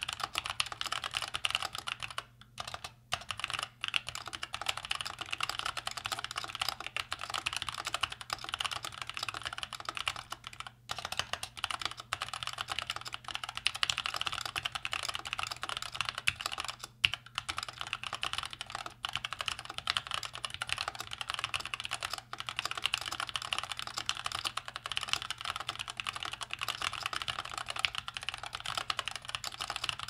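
Fast, continuous typing on an X-Bows ergonomic mechanical keyboard with Gateron Brown tactile switches and stock keycaps: a dense stream of key clacks broken by a few short pauses.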